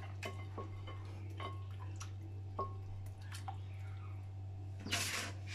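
Hands rubbing a spice marinade into a whole raw chicken: small wet squelches and drips, with a louder wet rustle near the end. A steady low hum runs underneath.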